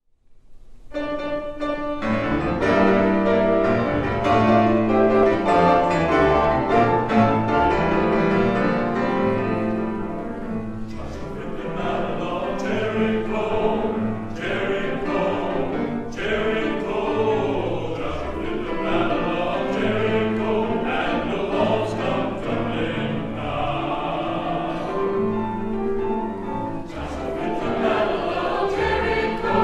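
Church chancel choir singing with piano accompaniment, starting about a second in.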